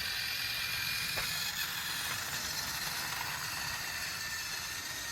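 Tomy Plarail battery-powered toy train running on its plastic track, its small electric motor whirring steadily with a faint high whine.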